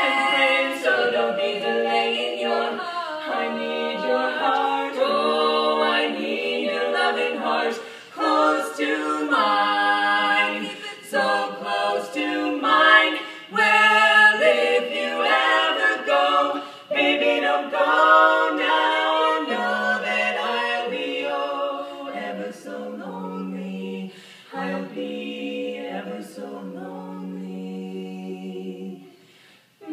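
Female barbershop quartet singing a cappella in close four-part harmony. The singing grows softer in the last few seconds and stops briefly near the end.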